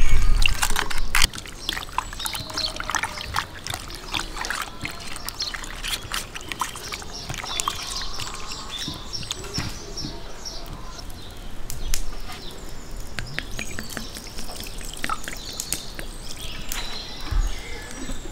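Raw kidney pieces being squeezed and mixed by hand in a glass bowl: wet squelching with many small clicks and slaps, louder for about the first second.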